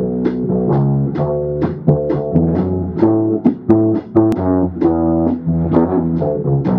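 Electric bass guitar playing a riff: plucked notes about two to three a second, in a steady rhythm.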